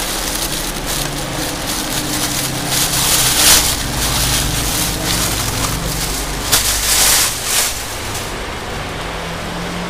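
Clear plastic wrapping being pulled and crumpled off a new motorcycle wheel rim, crackling continuously with louder bursts about three and a half seconds in and again around seven seconds in.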